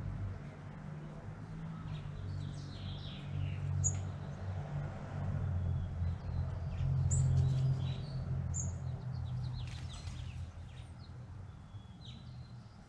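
Wild birds giving short, scattered chirps and calls, over a low steady hum that fades toward the end.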